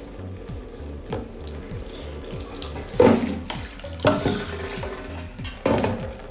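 Rice water pouring over hair and splashing into a basin, with three louder splashes: about three seconds in, about four seconds in and near the end. Background music with a steady beat runs underneath.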